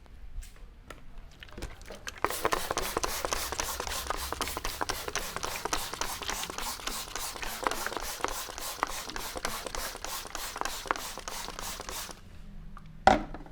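Hands working the scalp and hair in a fast, even rhythm of about four strokes a second, rubbing and patting with a hissy friction sound; it starts about two seconds in and stops a second before the end. It is followed by one short, loud crack.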